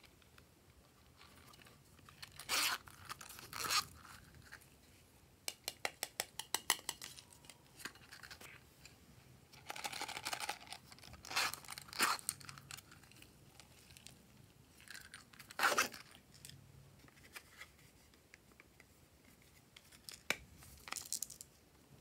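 Small plastic slime tubs being handled and opened by hand: a run of quick clicks and several short rasping, tearing-like sounds as lids are pulled and twisted off.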